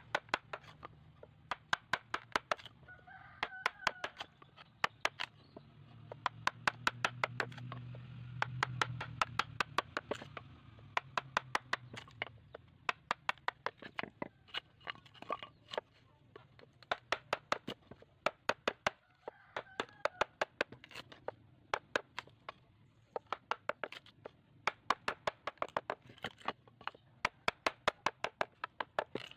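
A steel blade chopping and shaving a piece of wood to shape, in quick runs of sharp cuts about two to three a second with short pauses between.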